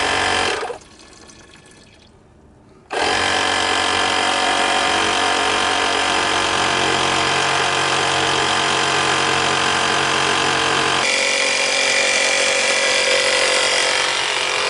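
Air compressor running steadily as it pressurises the cooling system to push the old antifreeze out. It drops away for about two seconds near the start, then resumes, and its tone shifts about eleven seconds in.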